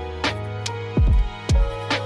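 Background music: an electronic track with held synth tones, two deep kick drums that drop in pitch about a second in, and sharp snare-like hits in between.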